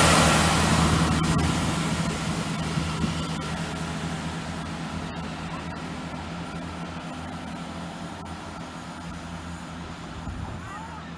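Chiltern Railways diesel multiple unit moving away along the line, its diesel engine drone and rail noise fading steadily.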